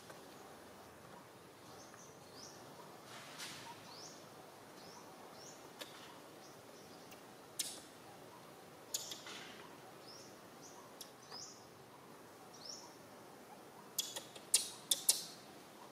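Short, high-pitched falling chirps from a small animal, repeating about once a second over a quiet outdoor background, with a quick run of sharp, loud clicks near the end.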